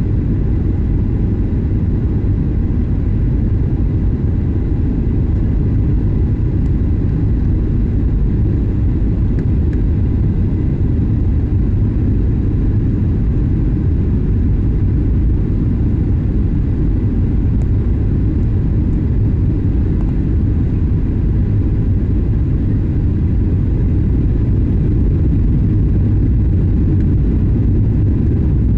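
Steady low rumble of engine and airflow noise inside a jet airliner's cabin on approach with flaps extended, with faint thin whines above it.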